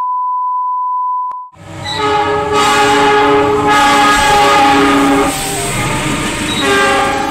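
A steady 1 kHz test-tone beep for about a second and a half, then cut off abruptly. A diesel locomotive's multi-tone horn follows in several long blasts over the rumble of the passing train.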